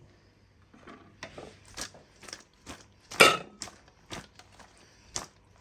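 Stainless steel colander full of cut vegetables lifted and set down, knocking and clanking against the crockery beneath in a quick series of clatters, the loudest about three seconds in.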